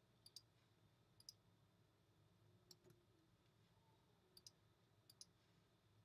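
Faint computer mouse clicks, about five of them, most in quick pairs, against near-silent room tone.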